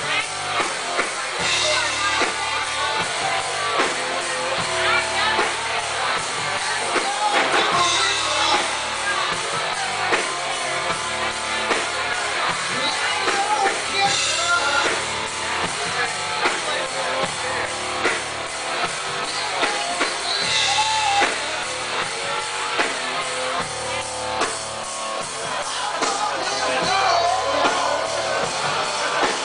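A rock band playing live, with electric guitar and drum kit and a singing voice.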